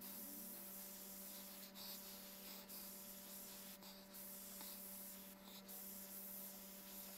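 Faint hiss of air from a gravity-feed airbrush spraying paint, dropping out briefly four times as the trigger is let off. A steady low hum runs underneath.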